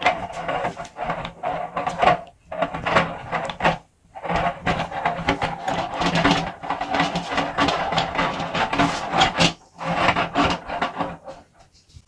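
Meat grinder grinding banana, a continuous churning rub in several long stretches. It breaks briefly about two and a half seconds in, again around four seconds, and near ten seconds, then stops just before the end.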